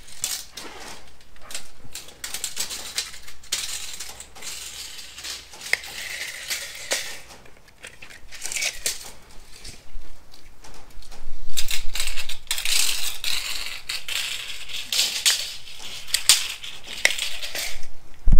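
Steel tape measures being pulled out and run along a concrete floor: irregular bursts of rattling and scraping from the metal blades, with sharp clicks, busiest in the second half.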